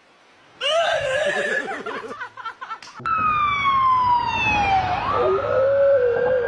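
A siren wailing, falling in pitch and then holding a high steady note, while a husky joins in with a long wavering howl from about two-thirds of the way in. Before that, a couple of seconds of unclear voice-like sounds and knocks.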